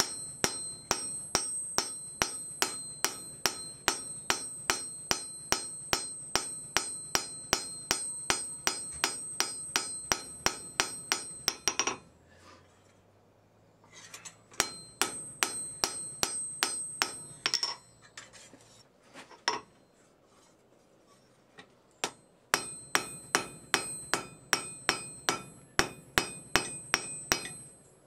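Hand hammer forging a railroad-spike steel blade on an anvil, striking about three blows a second, each blow with a high ringing note. The hammering stops twice for a few seconds and then resumes.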